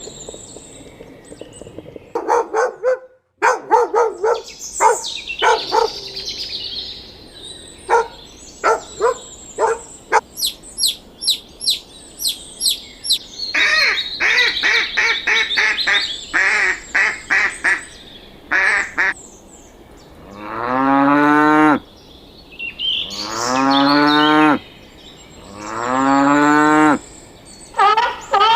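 A run of different animal calls edited together. First come trains of short, quickly repeated calls and some fast high chirps. Then, about 20 seconds in, a cow moos three times in long, falling calls, and near the end short rapid calls start again.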